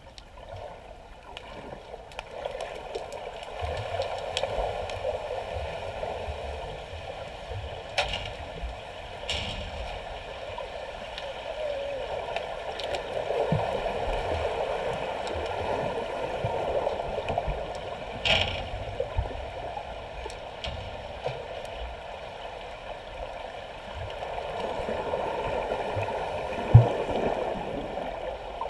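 Swimmers kicking, pushing off and churning the water in a pool, heard underwater as a muffled rushing that swells and fades. A few sharp clicks come through, and one loud knock near the end.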